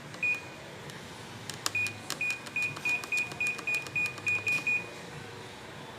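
Automatic washing machine control panel beeping as its buttons are pressed: one short high beep, then a quick run of about a dozen identical beeps, roughly three a second, each with a faint button click, as the settings are stepped through.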